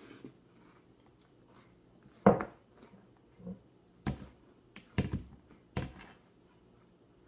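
Chewing a mouthful, with a handful of knocks and scrapes of a giant fork against a plate; the loudest knock comes about two seconds in.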